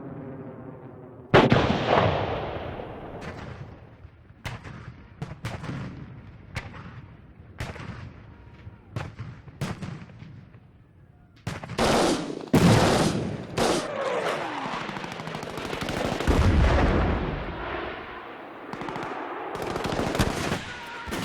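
Battlefield sound effect of gunfire and explosions. A loud blast comes about a second in and cuts off a droning tone, followed by scattered single gunshots, then denser rapid gunfire and a low rumbling blast in the second half.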